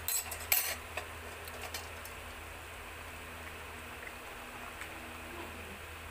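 Metal tongs stirring vegetables in an aluminium soup pot: a few sharp clicks in the first second, then only faint scattered ticks and clinks over a steady low hum.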